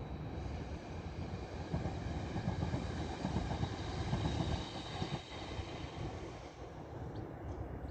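Passenger multiple-unit train passing at a distance on the main line: a steady rushing rumble of wheels on rail that swells to its loudest around the middle and then fades as the train runs past, with a faint high whine above it.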